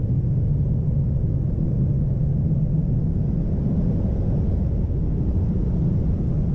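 Steady low rumbling noise at an even level, with no distinct events.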